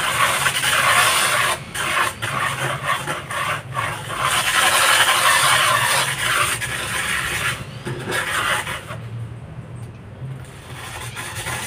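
Corded electric drill spinning a zirconia flap disc against a wall, sanding off mold: a harsh abrasive scraping over the drill's steady motor hum, broken by a few brief lifts and easing off about nine seconds in.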